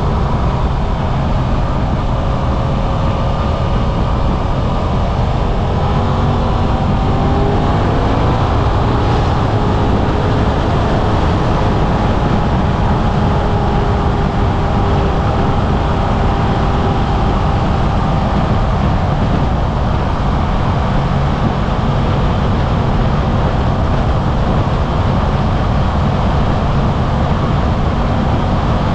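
Suzuki V-Strom 800RE's parallel-twin engine running as the bike is ridden, heard from the cockpit over wind rush. The engine note rises between about six and nine seconds in as the bike accelerates, then holds steady at cruise.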